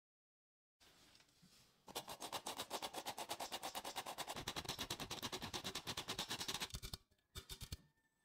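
Hand-worked stainless-steel flour sifter sifting flour into a glass bowl: a fast, even run of rasping clicks, about ten a second, lasting some five seconds. A few separate knocks follow near the end.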